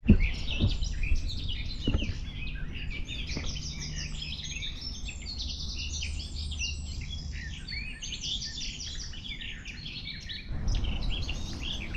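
Many woodland songbirds singing at once, a dense overlapping mix of high chirps and trills, over a low steady rumble.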